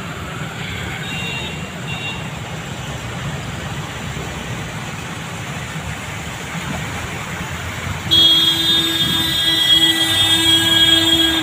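Traffic on a flooded road: a steady wash of engine noise and tyres hissing and splashing through standing water. About eight seconds in, a loud, steady pitched tone from a vehicle, like a horn or warning sounder, starts suddenly and holds to the end.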